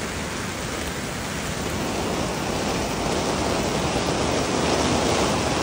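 Heavy downpour: a steady, dense hiss of rain, growing slightly louder toward the end.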